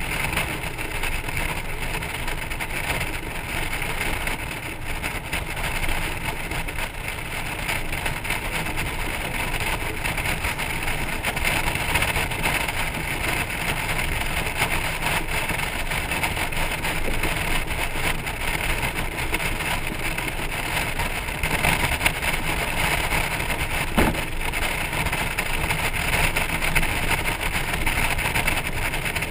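Steady wind and road noise from riding a Honda Gold Wing motorcycle with a trailer at cruising speed, picked up by a camera on the trailer. One sharp click comes late on.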